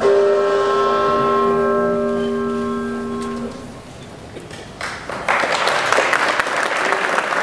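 Liberty Bell struck once, a ringing bell tone of several steady pitches that dies away and stops about three and a half seconds in. About five seconds in, applause breaks out.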